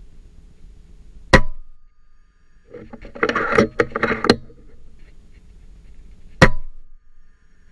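FX Impact M3 .30 calibre PCP air rifle firing twice, about five seconds apart, each shot a single sharp crack with a brief tail. In between comes a quick cluster of mechanical clacks and rattles.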